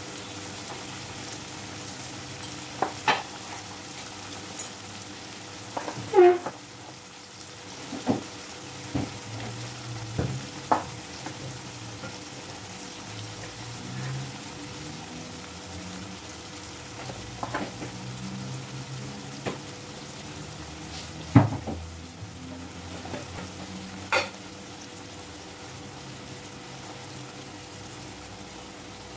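Sliced onions sizzling steadily in hot oil in a kadhai, with a scattering of sharp clicks and knocks as small spice bowls are handled and set down, the loudest about two-thirds of the way through.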